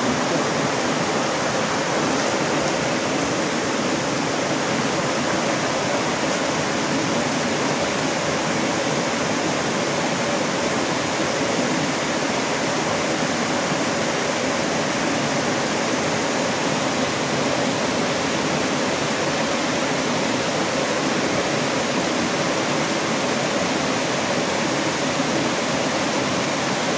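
Steady rushing of running water in a rocky stream, even and unchanging.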